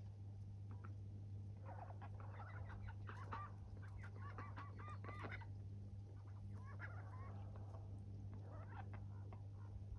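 Indian runner ducks giving soft, rapid quacking chatter in several short bursts, over a steady low hum.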